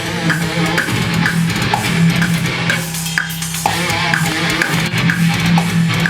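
Rock music: electric guitar and bass over a drum kit, with a steady beat.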